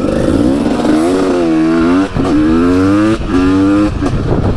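KTM EXC 300 two-stroke single with an FMF Shorty silencer accelerating hard. The pitch climbs, then drops sharply at each upshift, with three pulls.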